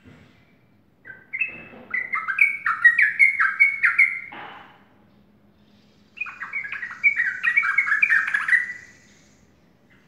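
Yellow-vented bulbul singing two quick, bubbling phrases of chattering notes, the first starting about a second in and lasting some three seconds, the second starting about six seconds in.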